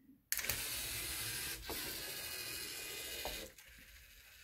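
LEGO Mindstorms EV3 robot's drive motors and plastic gears running as the robot drives off. The noise starts suddenly, breaks off briefly about halfway, and stops shortly before the end.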